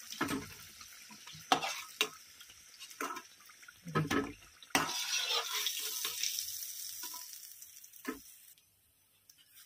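Green-pea kachoris sizzling in hot oil in a kadhai, with a metal utensil knocking and scraping against the pan several times as they are turned and lifted out. The sizzle swells about five seconds in, then cuts off to near silence about a second before the end.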